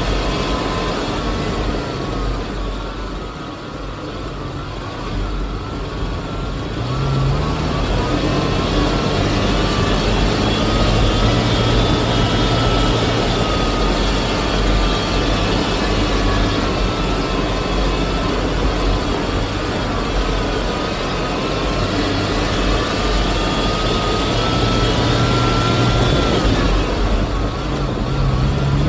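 FPV drone motors and propellers whining, the pitch rising and falling with the throttle, over the lower hum of the SUV's engine on a dirt road. Quieter for a few seconds near the start, then steady.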